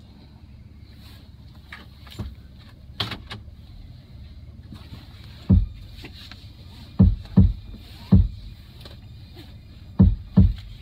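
Steady low rumble of a car's cabin, with several short, dull thumps from about halfway through, some coming in quick pairs.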